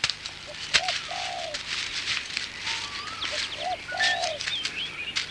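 A dove cooing a two-part phrase, a short note then a longer one, twice, with small birds chirping higher above it and a few faint sharp clicks.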